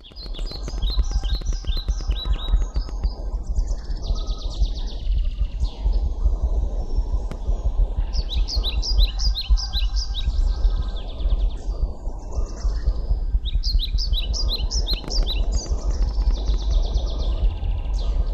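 A bird singing: phrases of quick, sweeping high whistled notes, about four or five a second, heard in three bursts, at the start, about 8 seconds in and about 13 seconds in, over a steady low rumble.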